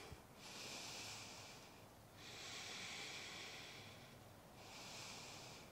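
A woman's faint breathing close to a clip-on microphone: three long, airy breaths with short pauses between them, taken while holding a core exercise.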